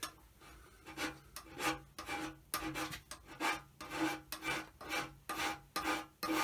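Hand scraper being pushed in short, repeated strokes across the cast-iron bed ways of a Holbrook lathe, starting about a second in at about two to three strokes a second, each stroke with a short ring from the iron. It is a step scrape to take about two thou of wear out of the bed at its worst.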